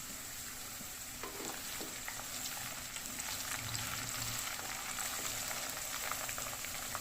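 Onions and green chillies sizzling steadily in hot oil in a pan, with a few faint taps and scrapes of a spoon stirring.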